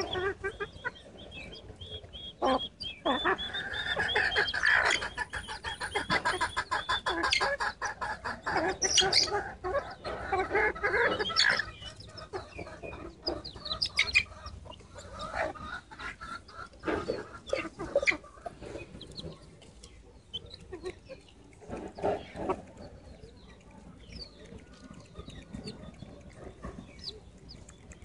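Young chickens clucking and cheeping while they peck rice, with quick pecking taps. The calls and taps are densest in the first half, then thin out to scattered clucks and taps.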